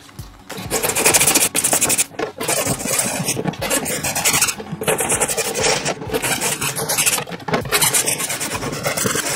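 Hand-sanding the plastic lid of a bucket, with a scraping rasp at about one stroke a second. The sanding roughens the plastic around the drilled air holes so that glue and mesh will stick to it.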